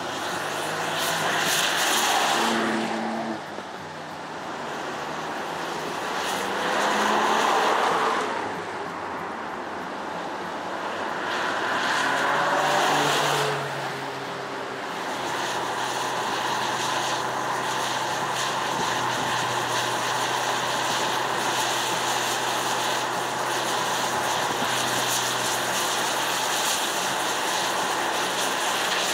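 Ford Puma ST's 1.5-litre turbo petrol engine and tyres on wet tarmac. The engine note and spray hiss swell and fade three times as the car drives past, its pitch dropping away each time, then settle into steady engine and road noise for the rest.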